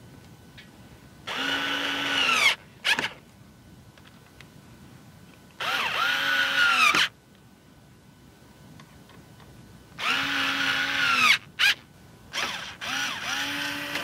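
Cordless electric screwdriver running in four short bursts of about a second each, the motor whine rising as it spins up and dropping as it stops, turning the screws that hold fans on a liquid-cooler radiator and a screw in the case frame. A short click follows a couple of the runs.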